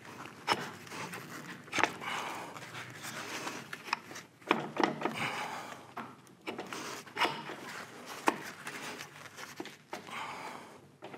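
Metal parts of a Monarch lathe's clutch being worked by gloved hands as the clutch spider is turned off its shaft: a rubbing, scraping noise broken by about half a dozen sharp, irregular clicks and knocks.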